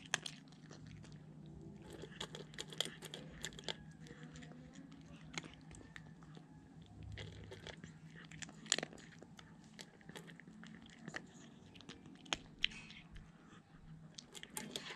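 A cat chewing dry kibble, with a run of irregular, sharp crunches as it bites down.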